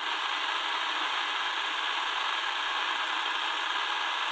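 Steady shortwave static hissing from the small speaker of a Tecsun DR-920C portable radio as it is tuned slowly across an empty stretch of the band around 13.4 MHz, with no station coming through.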